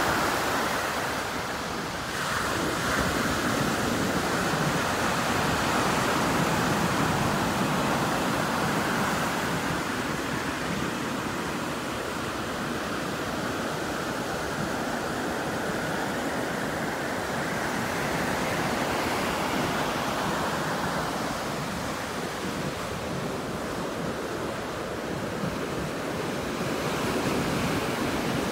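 Ocean surf breaking and washing up the sand, a steady rush that swells and eases as the waves come in.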